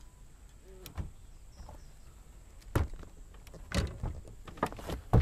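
A few scattered knocks and clunks from movement in a small fishing boat, with a faint short squeak about a second in.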